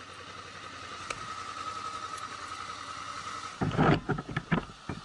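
Car running, its road noise heard with a faint steady whine, then a cluster of loud knocks and thuds about four seconds in.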